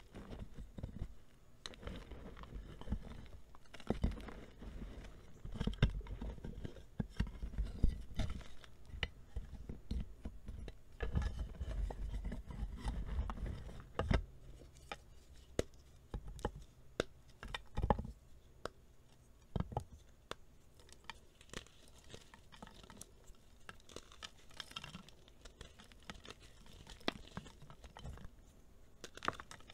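Hands crumbling and crushing reformed gym chalk, a dried slab of plain gym chalk re-set in a plastic container, over a bed of loose chalk powder. Irregular crunching, scraping and crackling, with scattered sharp snaps as hard pieces break and softer powdery rustles between them.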